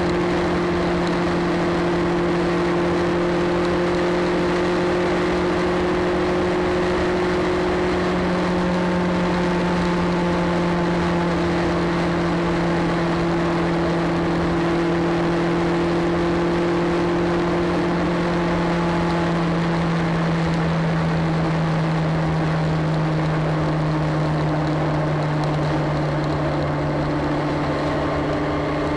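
Motorcycle engine running at a steady cruise over wind and road noise, its note sinking slightly in the last third as the bike eases off.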